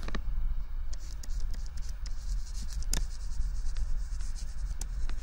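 Stylus tapping and scratching on a tablet screen while handwriting is written out: a string of light, irregular clicks over a steady low hum.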